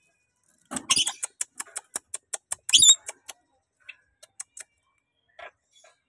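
Rainbow lorikeet at close range: a rapid run of sharp clicks, about five a second, with a short high warbling squeak about three seconds in, then a few scattered clicks.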